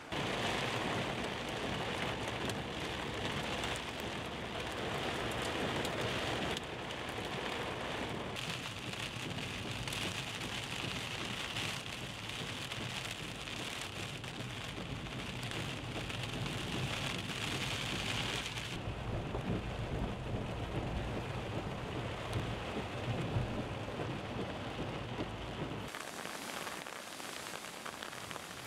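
Steady rain falling on wet ground, a dense hiss with a low rumble underneath. It changes abruptly in character several times.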